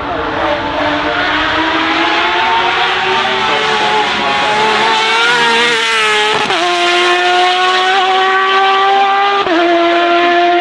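Race car engine accelerating hard on track, its pitch climbing through the revs and dropping sharply at two upshifts, about six and a half seconds in and again near the end.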